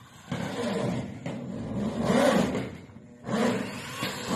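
Power drill driving self-drilling tek screws into a corrugated metal roof sheet, in three runs.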